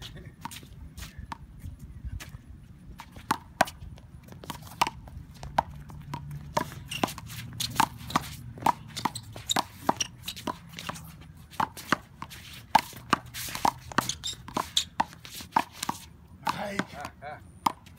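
A fast one-wall handball rally: a small rubber ball is slapped by hand and smacks off a concrete wall and the court in a rapid, irregular string of sharp cracks. It starts a few seconds in and stops shortly before the end.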